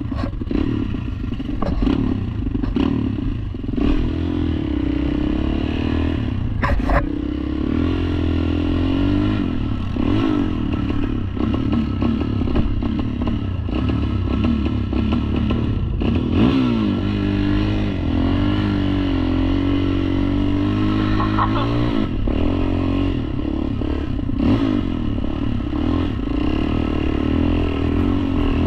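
ATV engine running under load, its pitch rising and falling again and again as the throttle is worked, with occasional knocks and clatter from the machine.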